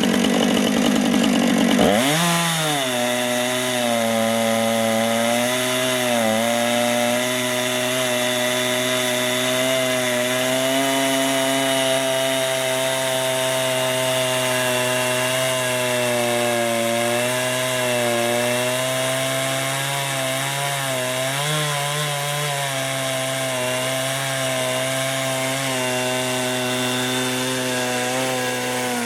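Two-stroke chainsaw on a chainsaw mill running at high revs while ripping a cedar log lengthwise into planks. The engine pitch dips and climbs back just after the start, then holds steady, sagging slightly now and then under the load of the cut.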